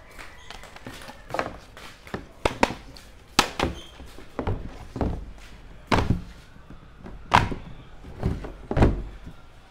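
A Fox Speed Frame Pro mountain-bike helmet being handled and turned over in the hands: about a dozen irregular thunks and knocks of its shell against hands and table.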